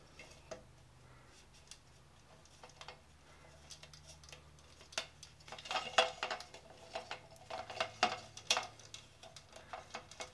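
Light clicks and taps of a plastic canister-style toilet flush valve and its rubber seal being handled as the new seal is worked into place. A few scattered clicks at first, then a busy run of small clicks from about halfway on.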